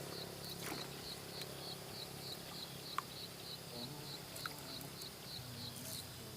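An insect, likely a cricket, chirping in a steady rhythm of about three short, high chirps a second that stops near the end. A steady low hum and a few faint clicks lie under it.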